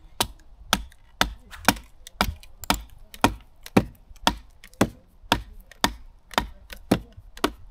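Firewood being chopped: sharp, evenly spaced blows about two a second, fifteen in all, into hard wood.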